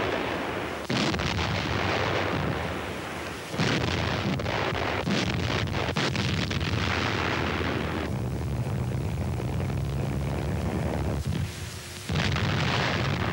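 Battle sounds on a 1944 newsreel soundtrack: explosions and heavy gunfire. Sudden blasts come about a second in and near four seconds in, followed by a run of sharp bangs over the next two seconds and a long rumble. Another blast comes near the end.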